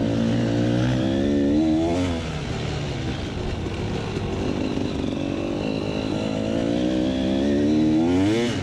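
KTM 300 EXC two-stroke enduro engine heard from on board, revving as the bike accelerates and backs off around the course. Its pitch climbs, drops about two seconds in, then climbs again and falls off sharply at the very end.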